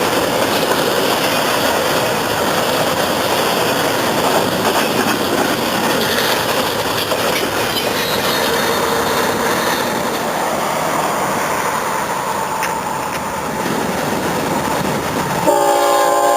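A train passing close by: a steady rumble and rattle of railcar wheels on the rails. About a second before the end, a locomotive horn sounds, a loud chord of several notes that keeps going.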